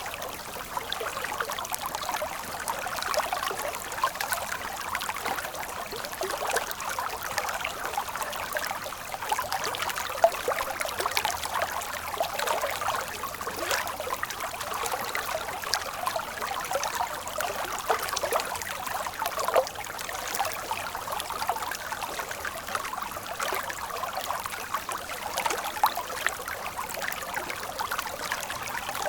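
Shallow stream water flowing and babbling steadily over rocks, with many small quick splashes and little deep rumble.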